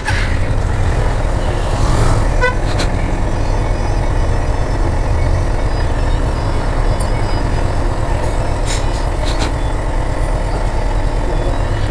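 Honda CB Hornet 160R motorcycle running through street traffic: a steady engine and road rumble, with a short vehicle horn toot about two and a half seconds in.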